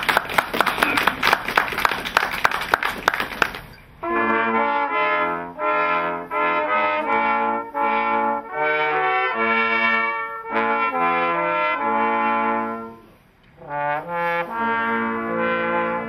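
Applause for about the first four seconds, then a brass quartet of two trumpets and two trombones playing a tune in chords, with a short break between phrases about thirteen seconds in.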